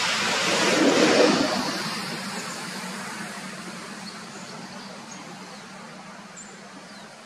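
A road vehicle passing by: a rushing noise that swells to its loudest about a second in, then fades away slowly.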